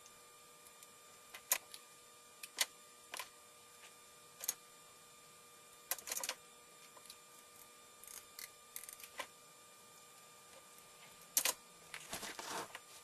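Irregular clicks and taps of small hard parts being handled, with a short rustling scrape near the end.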